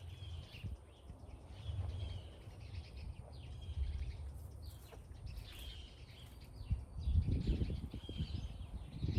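Small birds chirping again and again over a low rumble. From about seven seconds in come close rustling and knocking: hands digging in garden soil around sweet potato tubers.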